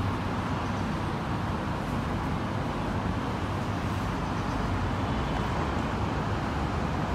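Steady outdoor city background noise, an even rumble like road traffic, with no distinct events.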